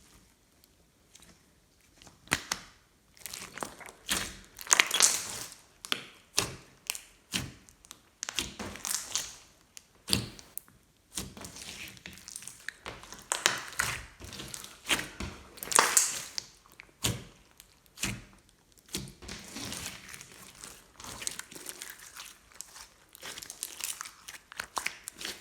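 Glossy slime being worked by hand, squished and stretched, giving irregular sticky crackles, pops and squelches, some in quick clusters.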